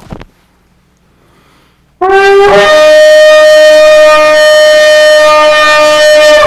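Shofar (ram's horn) blown in one long blast of about four and a half seconds, starting about two seconds in. It begins on a lower note, breaks up to a higher one half a second later, and holds there steadily until it stops sharply.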